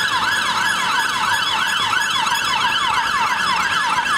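Ambulance siren on a fast yelp, its pitch sweeping up and down about four times a second without a break.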